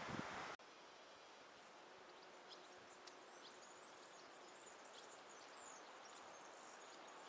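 Wind buffets the microphone briefly at the start. It cuts off abruptly to faint outdoor quiet, in which small birds sing a run of short, high-pitched chirps and trills.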